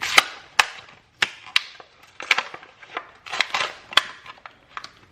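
Plastic pacifiers and their hard plastic packaging being handled: a string of sharp, irregular clicks and knocks with light rustling in between.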